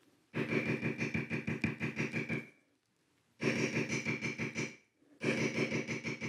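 Steel leather beveler tapped rapidly with a maul, about eight light strikes a second, each with a short pitched ring. The taps come in three runs with brief pauses as the tool is moved along the carved line, doing traditional beveling.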